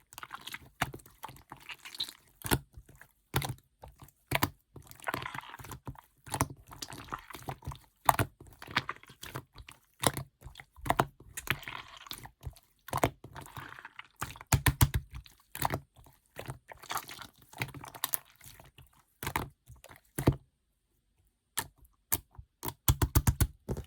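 Red clear slime being squished, poked and stretched by hand, giving rapid wet clicks and pops. The handling pauses briefly near the end, then the popping starts again.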